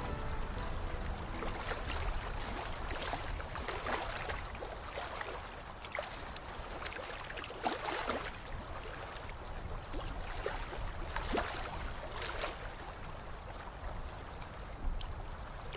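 Water lapping and splashing around a slow-moving ride boat over a steady low rumble, with a few sharper splashes scattered through.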